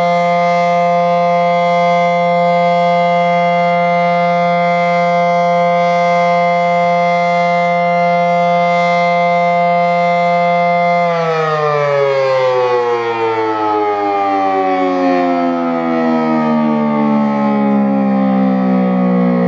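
Federal Signal SD-10 dual-tone outdoor warning siren sounding its steady Alert tone as a held chord. About eleven seconds in it shuts off and winds down, every note gliding steadily lower as the rotor slows. This is the end of its alert-cycle test.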